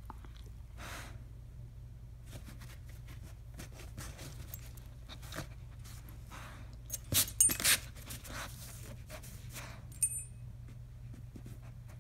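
German Shepherd pawing and scraping at a cardboard box flap: scattered scratches and rustles, with a louder cluster of scrapes about seven seconds in. The metal tags on its collar clink once about ten seconds in, over a low steady hum.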